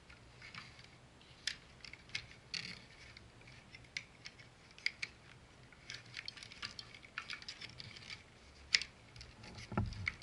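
Hard plastic parts of a Transformers action figure and its add-on upgrade piece clicking and clacking as they are handled and pressed together in an attempt to fit the piece. The clicks come irregularly, with a sharper one and then a dull bump near the end.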